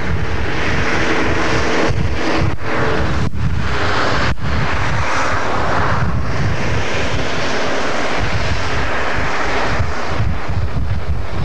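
Wind blowing on the camcorder microphone: a steady rush with low buffeting. Under it, a distant engine drone of steady pitch for the first three seconds or so.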